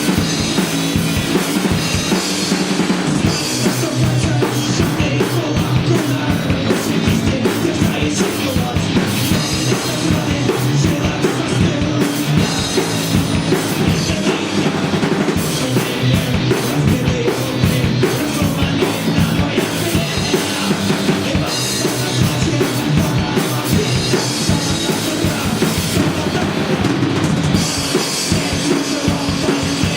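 Rock band playing live and loud, with the drum kit and bass drum driving a steady beat under amplified instruments.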